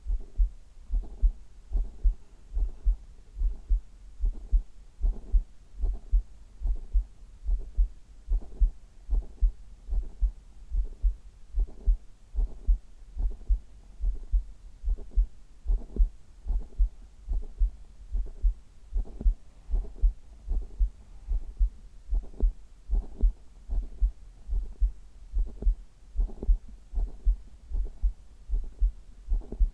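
A human heartbeat heard through the chest wall: deep, muffled thumps repeating in a steady, even rhythm.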